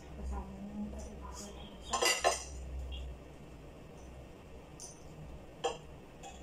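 Spoon and ceramic plates clinking together as food is dished out at the table. A quick run of clinks comes about two seconds in, and a single clink near the end.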